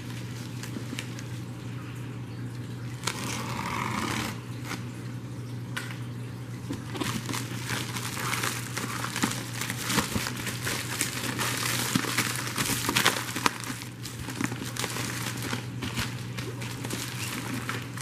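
A plastic FedEx shipping mailer and its taped paper wrapping crinkle and rustle as gloved hands handle and open it. The crinkling gets denser and louder from about seven seconds in. A steady low hum sits underneath.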